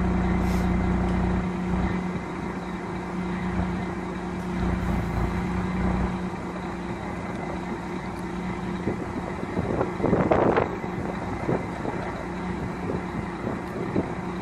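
Diesel lorry engine idling steadily; its low rumble eases off about a second and a half in. A brief, louder burst of noise comes about ten seconds in.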